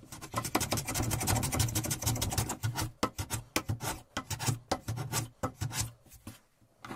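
Hand plane, a Stanley No. 4½, shaving a padauk block in a rapid series of scraping strokes that thin out and stop about six seconds in, followed by one short scrape near the end.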